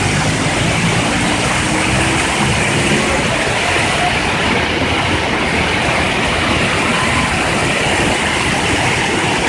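Muddy floodwater from an overflowing stream rushing and churning past, a loud, steady rushing noise.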